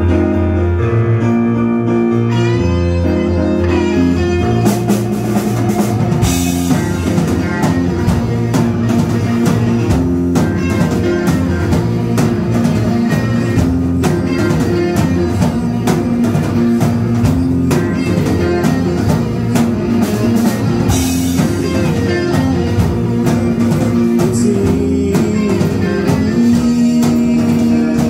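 Live rock band playing an original song, with electric guitar, bass and drum kit, and cymbal crashes twice.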